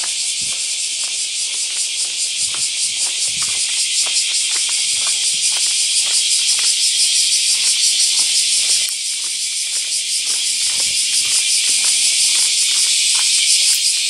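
Dense, steady chorus of insects shrilling with a fast pulsing, dipping briefly about nine seconds in. Faint footsteps on pavement beneath it.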